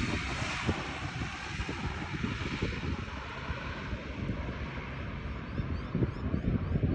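Engine noise of a landing QantasLink airliner, a steady rush that fades away. Wind buffets the microphone throughout and grows stronger near the end.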